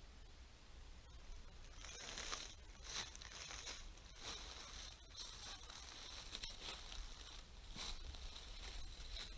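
Footsteps crunching through dry fallen leaves at a steady walking pace, starting about two seconds in.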